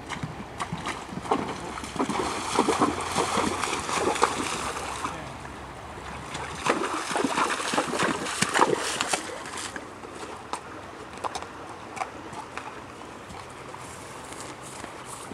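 Horse wading through a shallow creek, its hooves splashing and sloshing the water in two bouts. Near the end come a few scattered hoof knocks as it steps out onto the dirt bank.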